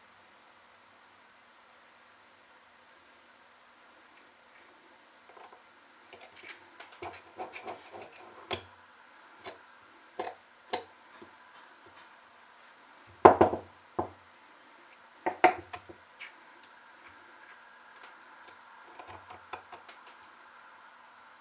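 Small sharp clicks, taps and knocks of tools and metal parts being handled while a chainsaw carburetor is taken apart to reach its diaphragm and gasket; scattered at first, with two louder knocks near the middle.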